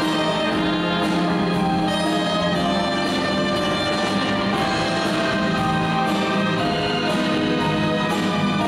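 Symphony orchestra playing, the violins and cellos bowing under a conductor.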